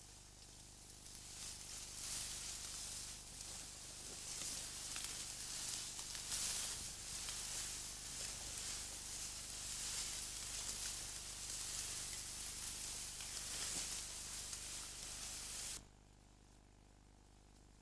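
Tall grass rustling and swishing as people push through it on foot: a dense, crackly hiss of stems and leaves brushing past. It cuts off suddenly near the end.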